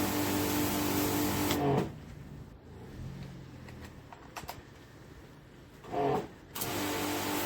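Pressure washer running and spraying, with a steady engine hum under the hiss of water. It stops about two seconds in, leaving a quiet stretch with a few clicks. A short pitched sound comes near the end, then the running and spraying start again.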